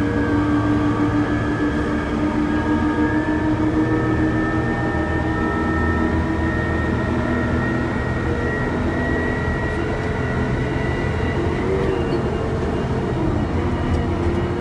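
KATO MR-350R rough-terrain crane's diesel engine and drivetrain running under way, heard from inside the cab: a steady drone with a whine that climbs slowly in pitch as the crane gathers speed, then drops near the end.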